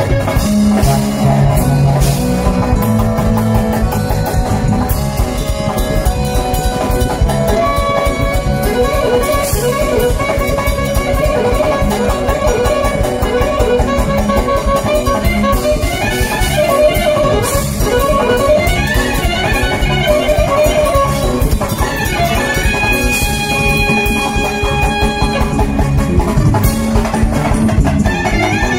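A band playing with a steady drum-kit beat under fast, ornamented melody lines, the band being a clarinet, saxophone, keyboard and drum kit.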